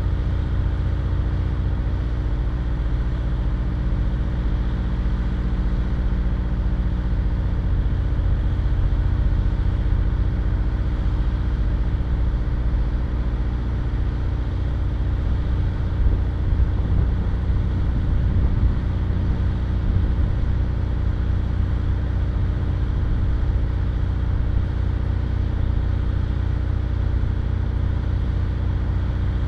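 Vehicle engine idling steadily while stopped, a low, even hum with a few slight swells in loudness around the middle.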